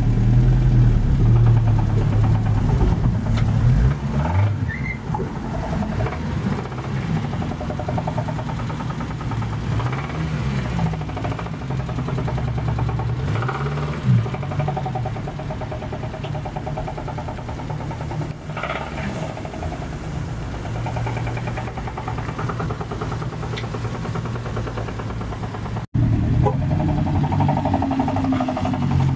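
Renault 9's four-cylinder engine running at idle with a knock from the bottom end, which the buyer puts down to a worn bearing shell in the fourth cylinder.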